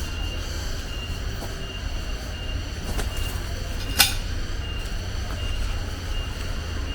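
Outdoor nature ambience: a steady low rumble under a short high chirp that repeats evenly about twice a second. One sharp click comes about four seconds in.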